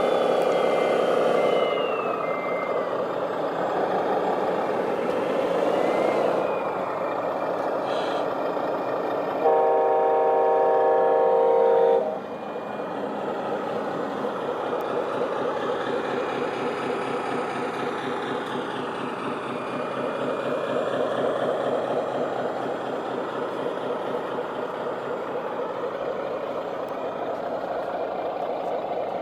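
Radio-controlled construction vehicles running, their motors whining and changing pitch as they work. Near the middle, a horn-like tone sounds steadily for about two and a half seconds.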